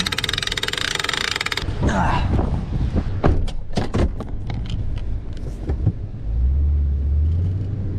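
Boat trailer's hand-cranked bow winch being wound tight, its ratchet clicking rapidly for about a second and a half. Scattered clicks and knocks follow, and about six seconds in a low steady truck engine hum comes in.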